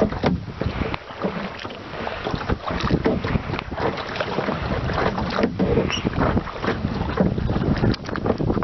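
Wind buffeting the microphone, mixed with water splashing and lapping against a plastic kayak hull as it moves across choppy lake water. The sound is loud and irregular throughout.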